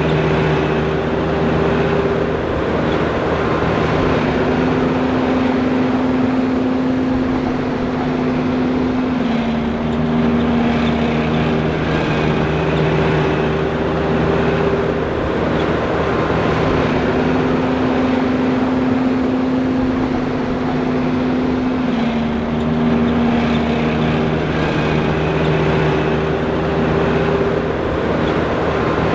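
John Deere 5820 self-propelled forage harvester running steadily, a dense mechanical noise carrying several engine tones that shift up and down in pitch every few seconds.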